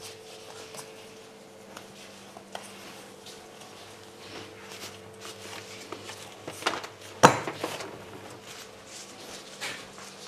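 Soft handling noises of noodle dough being kneaded and rolled by gloved hands on a plastic cutting board, with small clicks and one sharp knock about seven seconds in.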